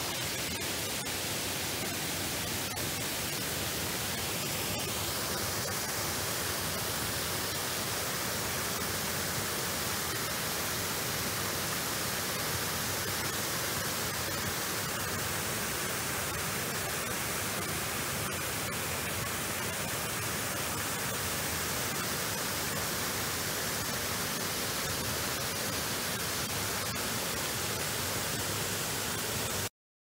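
Steady rushing of water spilling over a small stone weir on a forest stream, with no break until it cuts off suddenly near the end.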